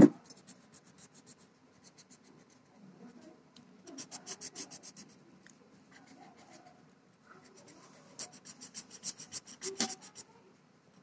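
Pen scribbling quickly back and forth on paper while colouring in, in two spells of rapid strokes, about ten a second, a few seconds in and again near the end. A single sharp knock at the very start is the loudest sound.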